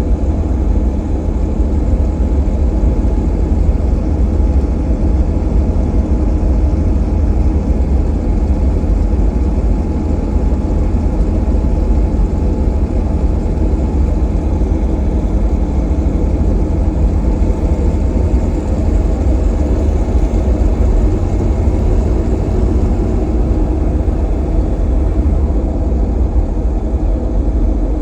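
Jeep TJ Wrangler's drivetrain running with a steady, loud rumble and an unidentified noise that the owner links to the AX15 five-speed manual transmission.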